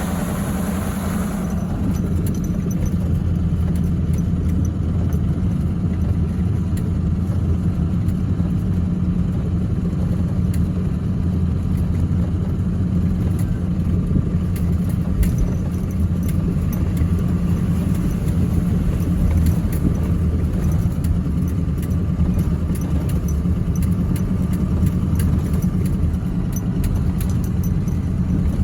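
2016 GMC Sierra pickup driving over a soft snowy bush road while hauling a load: a steady low engine and drive drone, with light clinking and rattling throughout.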